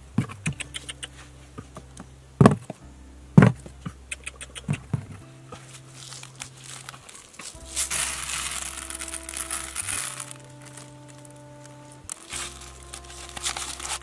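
Dry grain poured from a plastic bottle, pattering onto cardboard flaps for about two seconds near the middle and again near the end. Before that come light taps and clicks on the cardboard and two loud knocks a second apart, with a steady music track running underneath.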